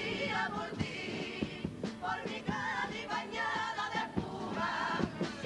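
A carnival comparsa choir singing together with wavering, vibrato-laden voices over a steady drum beat.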